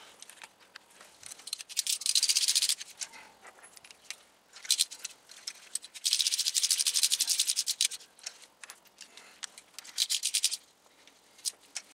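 Socket ratchet on a long extension clicking in quick runs as spark plugs are run down into the cylinder head. There are four runs of clicks, the longest about six seconds in, with quiet pauses between them.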